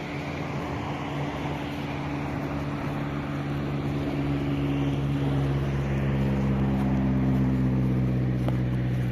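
An engine running steadily, its hum growing gradually louder.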